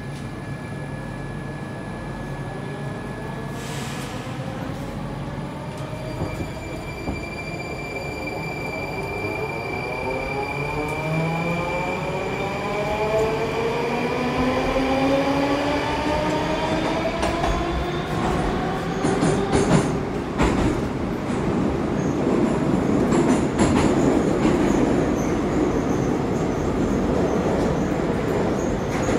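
Moscow metro train heard from inside the car as it pulls away and accelerates. The traction motors' whine rises steadily in pitch in several tones over about ten seconds, then gives way to a louder running rumble of wheels on rail with a few sharp clacks.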